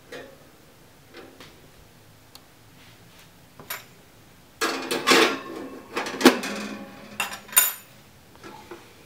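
A few light handling clicks, then about four and a half seconds in a burst of metal clattering and rattling with a ringing tone, as the thin wires of a metal oven rack are knocked and handled. It stops a little before the end.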